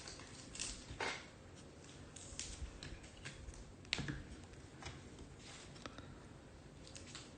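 Trading cards being handled: faint scattered clicks and rustles of cards, a few seconds apart.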